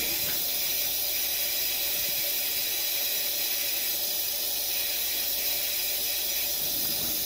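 Cold water running steadily from a sink faucet and down the drain, a constant hiss, flushing acid drain cleaner out of the trap.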